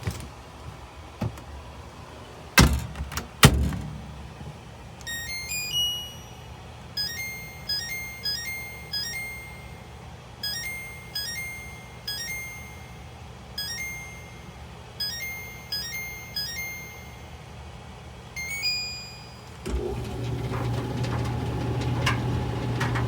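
Compact electric clothes dryer: two heavy thunks, then a long run of short electronic beeps from the control panel, then a steady hum as the drum motor starts running about twenty seconds in.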